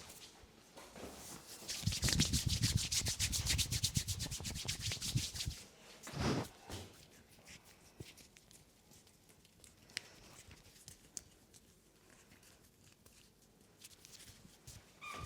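Hands rubbing over skin in a body massage: a fast, even run of friction strokes about two seconds in that lasts a few seconds, one longer rub after it, then faint, scattered hand sounds.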